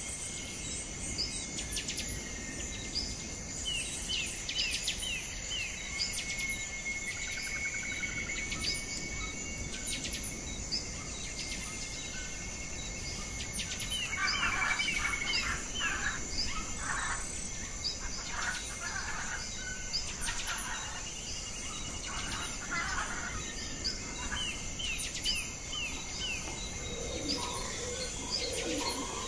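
Birds chirping and calling over a steady high-pitched insect drone and a low background rumble. A louder trilled call comes about halfway through, followed by a run of repeated calls.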